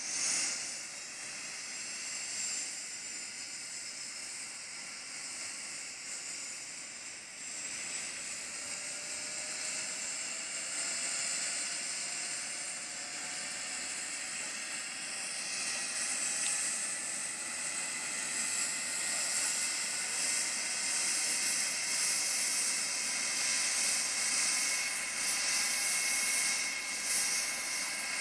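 Small gas turbine of a model helicopter running with a hissing whine, its pitch slowly rising as it spools up and the helicopter lifts into a hover near the end. A brief loud bump right at the start.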